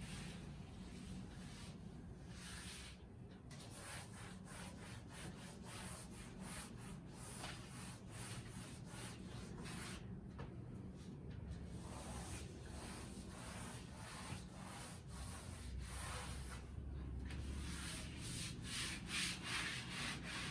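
Cloth duster wiping chalk off a blackboard in repeated rubbing strokes.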